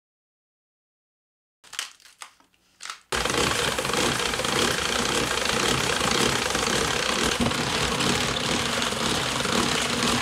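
Hand-cranked commercial cabbage slicer shredding a head of cabbage: a loud, steady, fast crisp cutting as the rotating blades shave the cabbage, starting about three seconds in after a few soft handling knocks.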